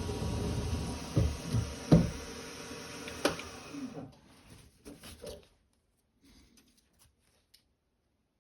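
Drilling machine running while a center drill spots the tapping hole, with a few sharp knocks, then shutting off about four seconds in, followed by a few faint clicks of handling.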